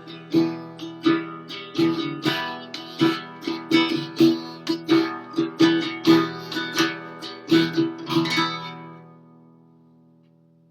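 Acoustic guitar strummed in a steady rhythm of about two strums a second as the song's outro. The strumming stops near the end and the last chord rings out and fades away.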